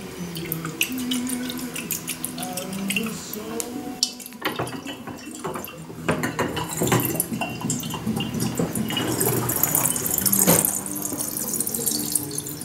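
Water draining in a swirling vortex from an upturned glass egg through a narrow neck into a lower glass egg, a rushing, splashing gurgle that builds from about four seconds in. Before it, a few light glass clicks and knocks as the filled egg is handled and set onto the stand.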